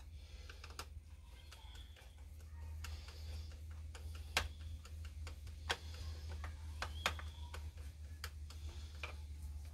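Irregular small clicks and taps of hands and tools handling parts on a Stihl 026 chainsaw's carburetor, over a steady low hum.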